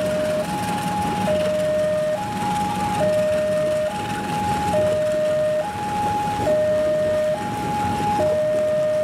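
Level-crossing warning alarm sounding a two-tone signal, switching between a lower and a higher note a little under once a second, over the steady rolling noise of passenger carriages passing the crossing.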